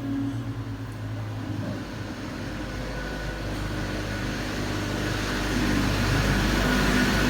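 A steady engine rumble with a low hum, growing louder toward the end.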